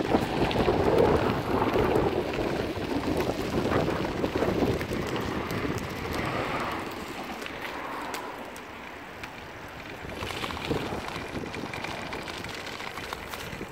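Triban 100 bicycle's tyres crunching over a gravel path, with wind buffeting the microphone. About ten seconds in the noise rises again with a rattle of clicks as the tyres roll onto paving stones.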